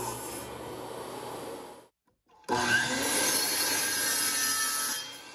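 A DeWalt table saw cutting through a piece of 1-inch oak, then after a brief gap a DeWalt sliding miter saw starting up sharply and cutting the oak, winding down near the end.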